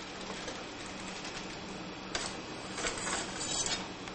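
Someone rummages through a kitchen utensil drawer, with metal utensils rattling. There is a short clatter about two seconds in, then a longer run of rattling near the end, over a steady hiss and low hum.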